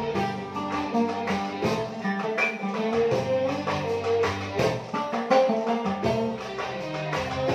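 Arabic ensemble music played live: an oud picks out the melody over violins, cellos, keyboard and percussion.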